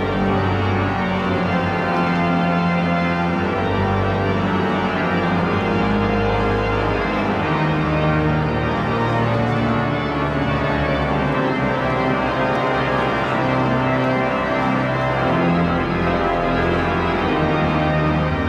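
Slow background music of long held, organ-like chords that change every few seconds at a steady level.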